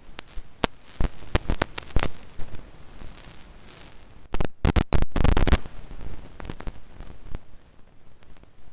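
Random crackling and pops from mixer mic preamps at high gain with phantom power on, fed through a faulty passive XLR-to-DB25 splitter whose circuit board has apparently become conductive. Irregular clicks over a low hiss, with a louder dense burst of crackle about halfway through.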